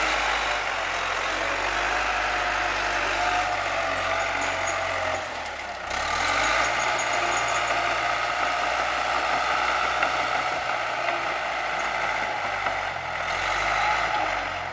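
Bulldozer's diesel engine running steadily under load, with a high whine over it. The engine dips briefly about five seconds in, then picks back up.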